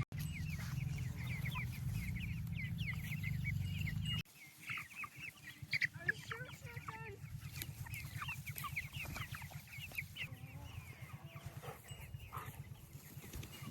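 A flock of young meat chickens peeping and clucking, many short high calls overlapping. A steady low rumble lies under them for the first four seconds, then stops abruptly.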